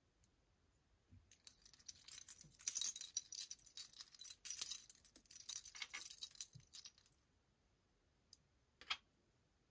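Small metal split rings and hard shrink-plastic charms jingling and clinking against each other as a charm choker is turned in the hands, for about six seconds. One sharp click near the end.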